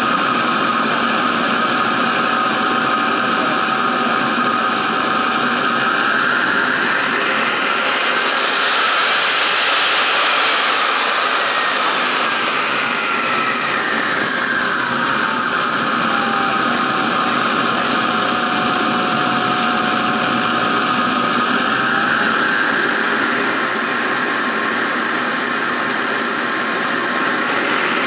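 Wren 75 KPro model jet turbine running with a steady whine. About six seconds in it spools up, peaking around ten seconds with its loudest rush of exhaust, then spools back down to idle. It climbs again after about twenty seconds and holds the higher pitch.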